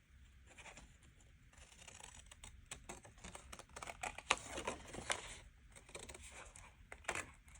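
Faint, irregular clicking and rustling of paper and small craft tools being handled.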